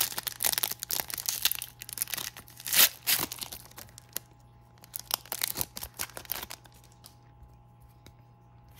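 Foil trading-card pack wrapper being torn open and crinkled in the hands: a dense crackling, loudest about three seconds in, then a shorter run of crinkling a couple of seconds later before it dies down to faint rustles.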